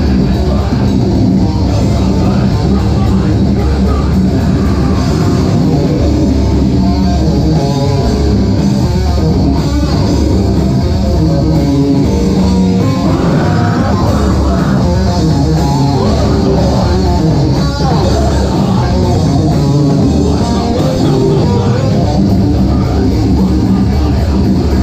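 Live rock band playing loud: electric guitar, bass guitar and drum kit, with a vocalist singing into a microphone.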